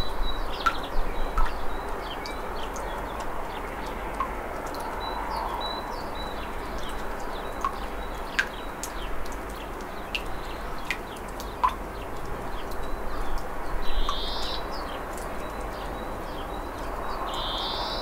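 Birds chirping outdoors, short scattered calls over a steady background hum.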